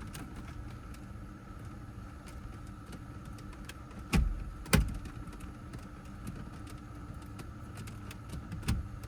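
Small clicks and knocks of hands working on parts in a car's interior, with two sharp knocks about half a second apart a little before the middle, over a steady faint hum.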